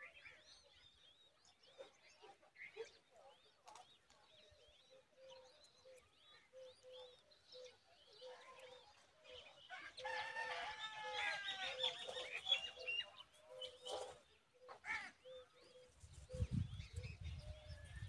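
Faint chirping of small birds at a nest, with a low note repeating about twice a second underneath. About ten seconds in comes a louder run of squeaky begging calls lasting a few seconds, as the nestlings are fed by an adult common babbler. A low rumble comes in near the end.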